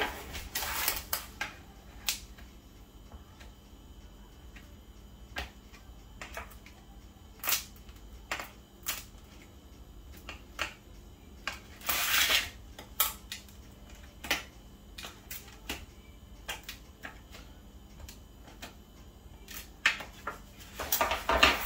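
Metal fork tines pressing down the edges of puff pastry in a disposable aluminium foil pan, sealing them: irregular clicks and taps of the fork on the foil, with a few longer rustles of the foil pan, the loudest near the middle and near the end.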